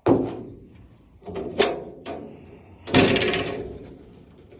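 Metal wire-mesh cage door clanking and rattling as it is unlatched and swung open. There are three loud clanks, the last a longer rattle of the mesh panel about three seconds in.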